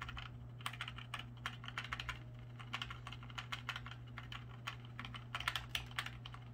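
Delete key on a CyberPowerPC keyboard tapped rapidly and repeatedly during boot to enter the BIOS: many quick key clicks, several a second, over a steady low hum.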